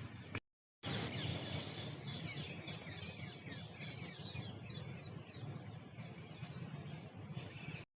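Many birds chirping at once, quick repeated chirps over a steady low background rumble. The sound cuts out for a moment near the start.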